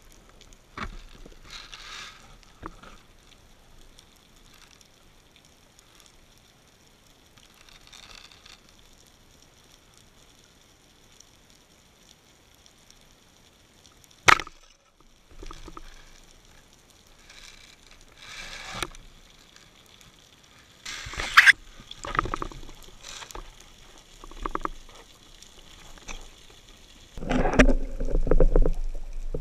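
Underwater sound through a camera housing: faint water noise with scattered clicks and knocks, one sharp click about halfway through, and a louder stretch of water noise and knocking near the end.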